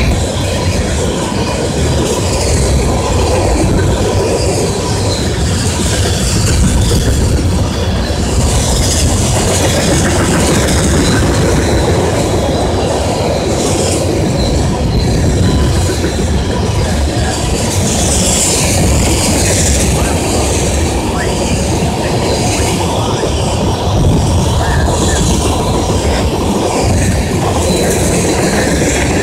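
Long freight train of tank cars rolling past close by: a steady loud rumble of wheels on the rails, with a higher hiss swelling up twice, about a third and two thirds of the way through.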